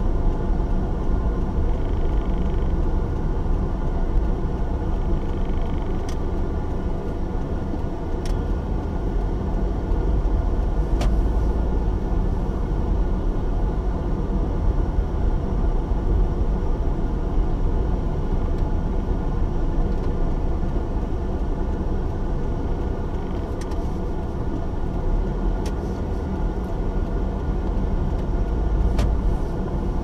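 Steady low rumble of a car's engine and tyres on tarmac, heard from inside the cabin while driving, swelling slightly a couple of times, with a few faint clicks.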